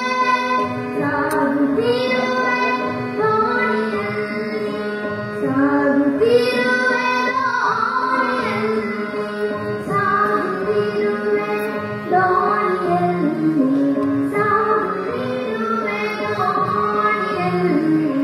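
A female voice singing a devotional prayer in Carnatic style, with long held notes and glides between pitches, over a steady drone.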